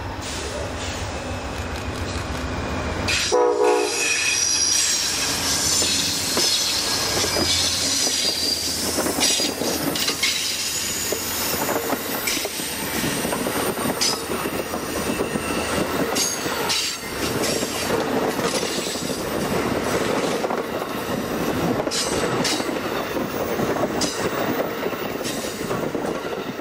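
Amtrak passenger train passing close by: a GE Genesis diesel locomotive hauling bilevel Superliner cars. A brief horn note sounds about three seconds in as the locomotive arrives, followed by several seconds of high wheel squeal. Then a steady rush of the cars rolling past, with repeated clicks over the rail joints.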